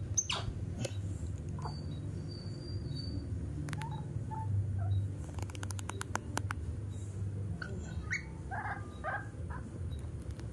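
Baby macaque giving short high squeaks and chirps, with a falling squeal just after the start and a few quick calls near the end. A quick run of sharp clicks falls in the middle, and a low steady hum runs underneath.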